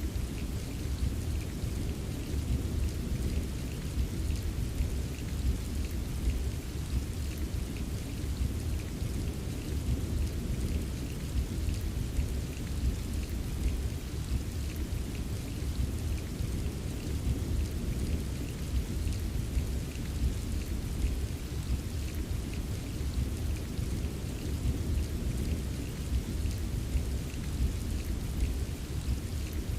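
Steady rain with many small drop taps over a continuous deep, low rumble of rolling thunder.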